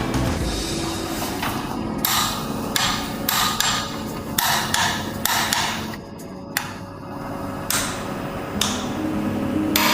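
Hand tools knocking and clanking on metal engine parts during assembly: a string of irregular knocks and taps, roughly one every half second to a second.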